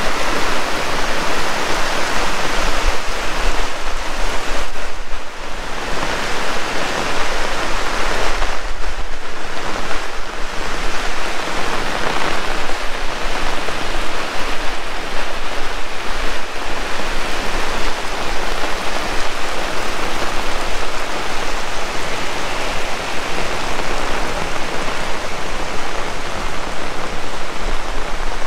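Heavy rain pouring down: a loud, steady hiss.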